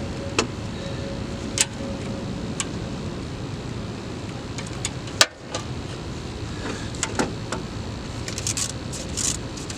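A few sharp clicks and knocks of hand tools and parts being handled during work on a car's AC compressor, the loudest about five seconds in, over a steady background noise.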